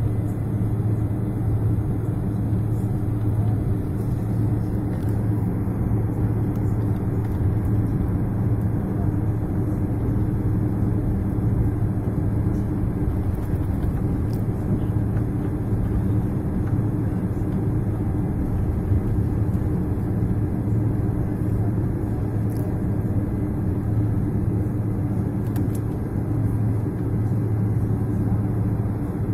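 Boeing 767 jet engines and runway rumble heard inside the passenger cabin during the takeoff roll: a loud, steady deep roar with a low hum running through it.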